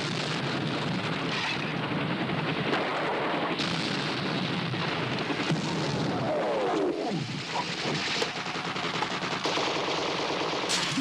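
Film soundtrack of a battle: dense, sustained machine-gun and rifle fire, with a falling glide in pitch about six seconds in.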